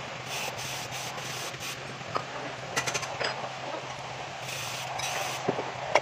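Small clicks and light scraping of hand work on a metal part while an old O-ring is pried off, over a steady low hum.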